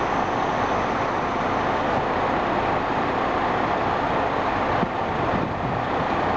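Diesel engines of a four-car KiHa 47 railcar train idling at a standstill, a steady even rumble-and-hiss with no change in pitch.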